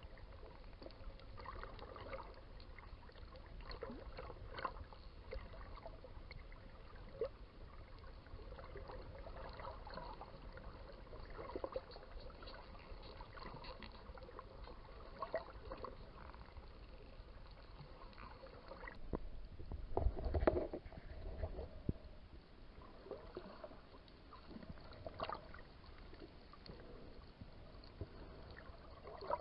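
Underwater sound of dolphins: scattered clicks and short squeaks over a steady watery hiss, with a louder rush of water about twenty seconds in.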